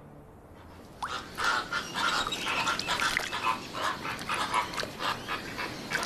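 A flock of flamingos calling: many short, overlapping calls in an irregular chatter, starting about a second in.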